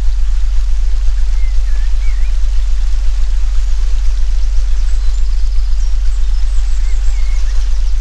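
A loud, steady low hum of a synthesised 'healing frequency' tone, swelling and fading in a regular pulse. Under it runs a forest-ambience recording: a soft, even hiss like running water, with birds chirping and trilling now and then.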